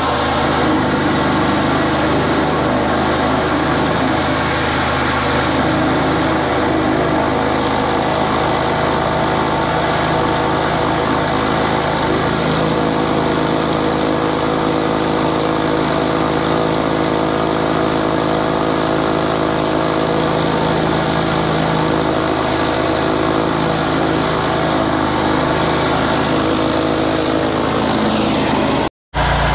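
High-pressure drain jetter running steadily at about 5,000 PSI, its pump holding a steady note under the spray of a Direct Hit Penetrator nozzle's water jet cutting into a wooden plank.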